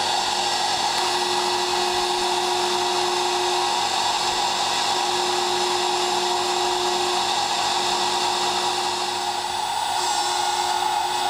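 High-speed milling spindle running at about 24,000 RPM, a steady whine and hiss, as its small engraving cutter works a thin metal sheet.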